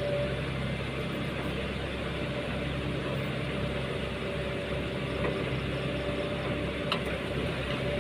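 Heavy engine running steadily at a low, even speed, with one brief click about seven seconds in.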